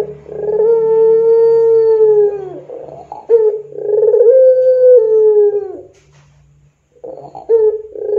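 Puter pelung, the Barbary dove kept for its long coo, cooing: two long drawn-out coos, each held on one pitch and dropping off at the end, then a pause of about a second, and a third coo beginning near the end.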